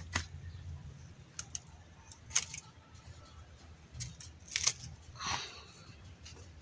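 Pruning shears snipping through succulent stems: a few separate sharp clicks spread over several seconds, with a longer, softer rasp about five seconds in.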